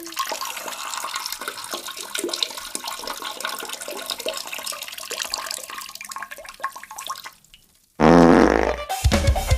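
A long crackling, spluttering noise, then about eight seconds in a loud, brief comic fart sound effect with a wavering pitch.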